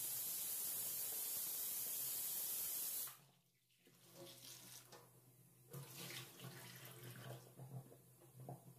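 Tap water running steadily into a stainless steel sink and over a plate of onions being washed by hand. The flow cuts off abruptly about three seconds in, leaving only faint, uneven splashing and handling sounds.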